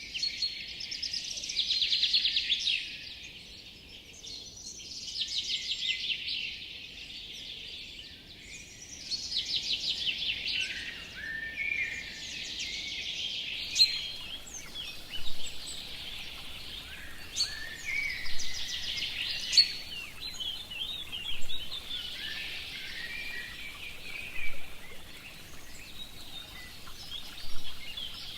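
Forest birdsong: songbirds singing rapid trilled phrases that repeat every few seconds, with sharper chirps later on, over a faint steady background hiss.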